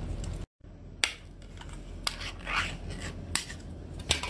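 Chewing for a moment, then after a cut a few sharp clicks about a second apart and a brief scraping rustle, from an opened metal food can being handled.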